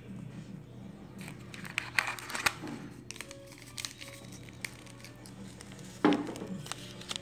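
Plastic takeout containers and wrapping being handled: crinkling and rustling with clusters of sharp clicks, and one loud knock about six seconds in.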